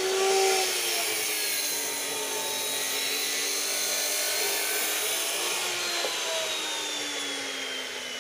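A steady engine drone with a high whine over a broad hiss; its pitch slides slowly down and it fades over the last couple of seconds.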